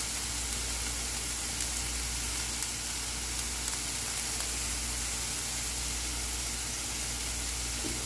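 Diced onions and sweet peppers sizzling in oil in a stainless steel skillet: a steady hiss with a few faint crackles.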